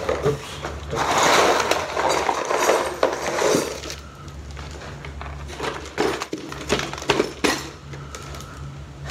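A heap of small metal split rings spilling out of a cardboard box onto the table, a dense clinking jingle for about three seconds, then scattered light clinks as they settle and are handled.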